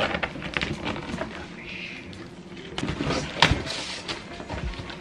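Cardboard box being handled and opened by hand: irregular rustling and scraping of the cardboard flaps, with a sharp knock about three and a half seconds in.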